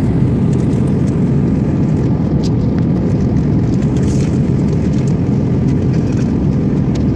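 Jet airliner cabin noise: a steady low rumble of engines and rushing air, with the wing flaps extended.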